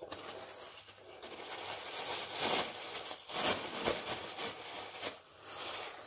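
Plastic cling film wrapped around a foot crinkling and rustling, in irregular surges that are loudest about two and a half and three and a half seconds in.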